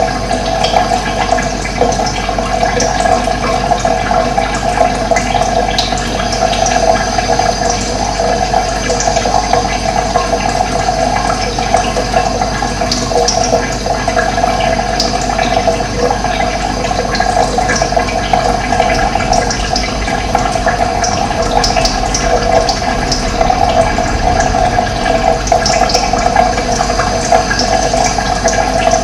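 Running water, a steady rush, with scattered short bird chirps above it.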